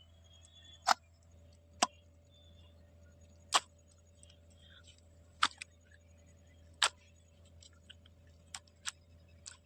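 A series of sharp knocks at irregular intervals, about nine in all, over a steady low hum.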